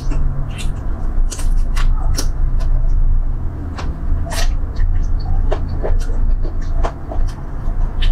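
Close eating sounds: wet smacking, sucking and chewing clicks as chicken feet in chili sauce are eaten and sauce is sucked off the fingers, over a steady low rumble.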